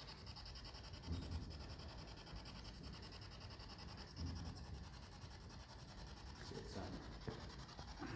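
Faint rubbing and scratching handling noise from a hand-held phone, over a steady hiss, with two soft low thumps about one second and four seconds in.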